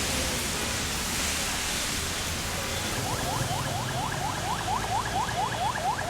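Steady rain hiss. About halfway through, a rapid run of short rising chirps starts up, roughly four a second, over the rain.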